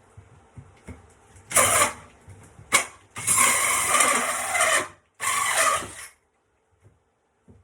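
Power drill driving a carbon steel hole saw through wood in several short bursts, finishing the cut, then stopping about six seconds in.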